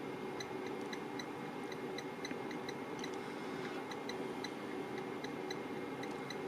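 Amplifier dyno test bench running a 2-ohm load test on a car-audio monoblock amp: a steady whooshing hiss with a faint constant hum tone, and light ticks about four times a second.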